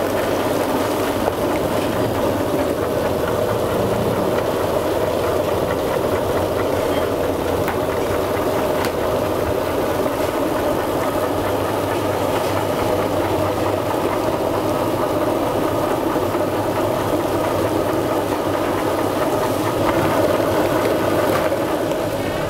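A steady mechanical drone with a low hum, like a motor running continuously.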